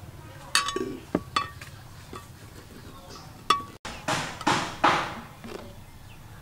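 A cleaver knocking sharply on a plastic cutting board a few times, some knocks with a short metallic ring. About four seconds in come soft brushing and knocking sounds as cheese sticks are laid onto a ceramic plate.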